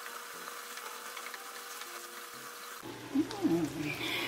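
Wooden spoon stirring and scraping through ground venison and diced vegetables in a frying pan, light clicks over a steady hiss of the simmering dish. About three seconds in, a short voice-like sound with a wavering pitch is the loudest thing.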